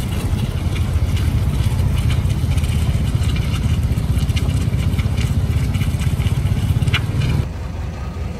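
Heavy diesel earthmoving machine running with a steady low rumble and irregular metallic clanks. The rumble drops off abruptly near the end.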